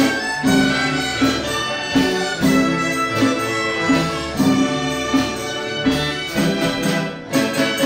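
Chinese orchestra playing an ensemble piece with a steady pulse: bowed cellos, plucked pipa and ruan lutes, yangqin, sheng and bamboo dizi flute together.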